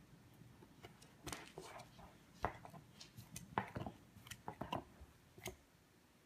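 A corgi gnawing a bully stick: irregular crunching, clicking chews. They start about a second in and stop near the end.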